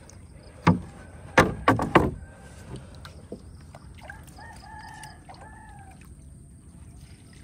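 A few sharp knocks in the first two seconds, then a rooster crowing once, about four seconds in.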